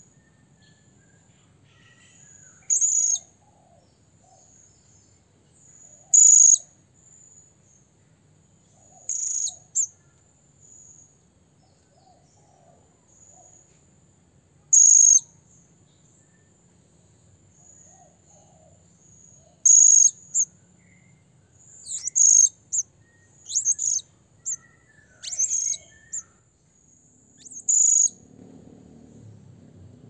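Blue-crowned hanging parrot (serindit) giving short, shrill, high-pitched calls, about ten of them at irregular intervals, coming faster in the second half: its call to challenge a rival.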